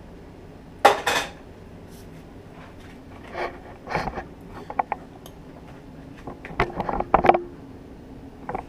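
Stainless steel frying pan clanking and scraping on an electric stove's coil burner: a handful of sharp metal knocks, some with a short ring, the loudest about a second in and a cluster near the end.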